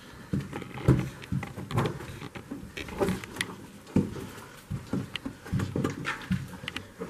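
Slow footsteps on soft, spongy stairs, roughly one step a second, with scuffs and small clicks between the steps.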